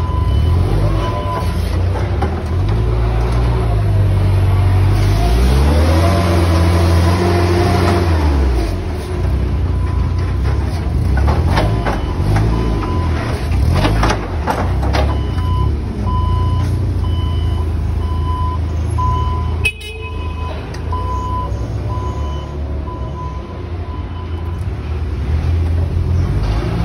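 Hyundai forklift with a carton clamp unloading a trailer: its motor and hydraulics run steadily, the whine rising and falling in pitch as it clamps and lifts a stack of cartons. Its reversing alarm beeps about once a second in the second half, with scattered knocks and one sharp clunk.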